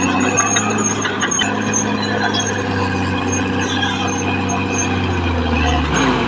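Caterpillar D6R XL bulldozer running steadily with its diesel engine humming, and short high squeaks coming and going over it.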